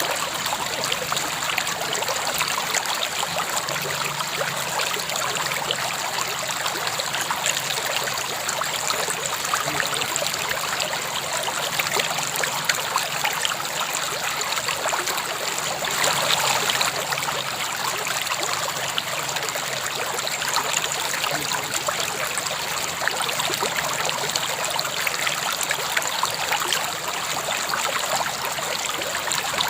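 River water flowing in a steady, continuous rush, swelling slightly louder for a moment about halfway through.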